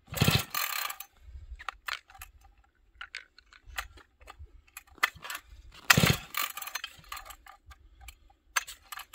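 Two short, hard pulls on a McCulloch chainsaw's recoil starter, one right at the start and one about six seconds in, the engine turning over briefly without firing, with small clicks and rattles between. In about −25 °F cold the recoil won't give enough pull to start the saw.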